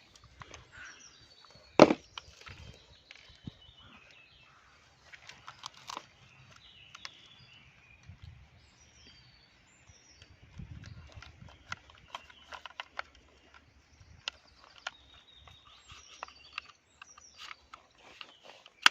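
Outdoor ambience of scattered sharp clicks and knocks, with one much louder knock about two seconds in and faint high bird-like chirps now and then.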